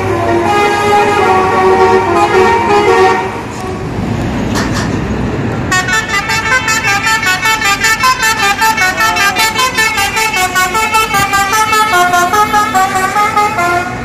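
Bus 'telolet' musical air horn, a set of horn trumpets sounding a melody of stepping notes; after a short break filled with passing-vehicle rumble about three seconds in, it plays a fast pulsing run of notes, about five a second.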